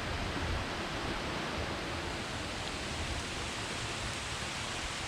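Steady rain falling, an even hiss with no breaks, raining pretty good.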